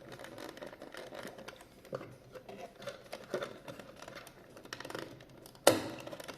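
Small plastic clicks and taps of a quartz cuckoo clock's movement and case being handled, with one sharp, louder knock near the end.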